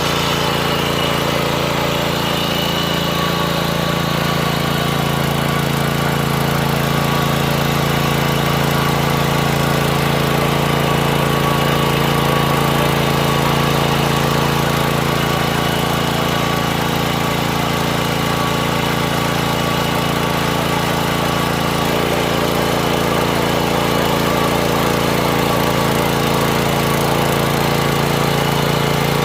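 Mini tiller's small engine running steadily as it ploughs soil, at an even pitch with no change in speed.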